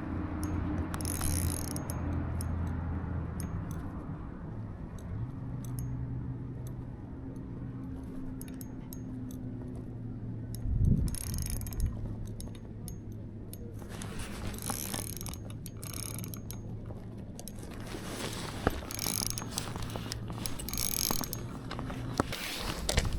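Shimano Ultegra 2500 spinning reel under heavy load from a large fish: the handle is cranked with a steady gear whir, and the drag gives off runs of sharp clicks as the fish takes line. The fish is hard to bring in, and the angler suspects it is foul-hooked.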